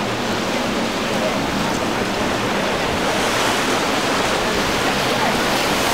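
Steady rush of rough inlet waves and surf, growing a little louder about halfway through.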